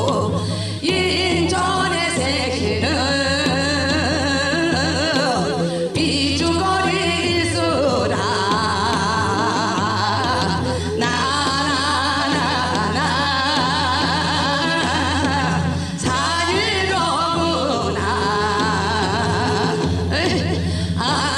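Korean folk song being sung, a voice with music, in wavering, held vocal lines.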